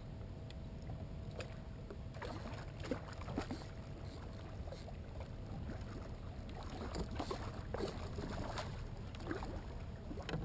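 Water sloshing and splashing irregularly around a fishing kayak as a hooked redfish is fought beside it, with small knocks against the hull over a steady low wind rumble on the microphone.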